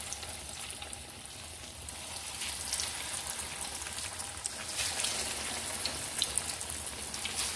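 Potato patties (aloo tikki) sizzling in hot oil in a frying pan, with scattered crackles and pops. The sizzle grows slightly louder as more patties are laid in.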